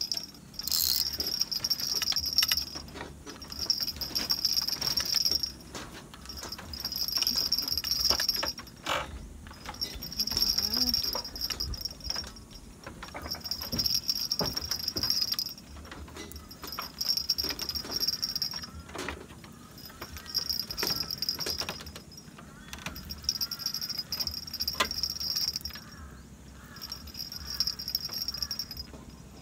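Insects buzzing in a high, rhythmic chorus that swells and breaks off in pulses of one to three seconds, with scattered light clicks and knocks.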